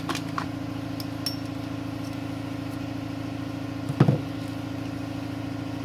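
A few light clicks and one sharper clink about four seconds in as a metal brake caliper piston and a digital vernier caliper are handled on a bench, over a steady low hum.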